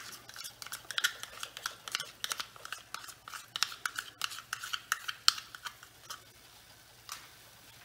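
A spoon scraping thick curd (yogurt) out of a plastic tub into a pan of masala: a quick run of small, irregular scrapes and clicks that eases off about six seconds in.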